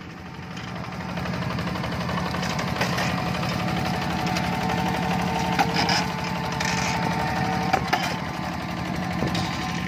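Two-wheel hand tractor's single-cylinder diesel engine running steadily under load as it hauls sacks of unhusked rice over a muddy field, growing louder as it draws near. Two sharp knocks come in the second half.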